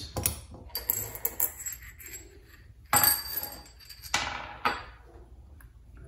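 Small metal carburetor parts clinking and clattering on a workbench as the carburetor is handled during reassembly. There are several light clicks at first, then a louder metallic clatter about three seconds in that rings briefly, and two smaller knocks soon after.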